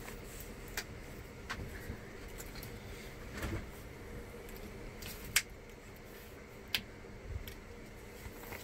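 Quiet handling noise as the adhesive backing strip is peeled off faux-teak deck flooring and the edge is pressed down by hand: scattered light clicks and taps, two sharper clicks in the second half, over a steady low hum.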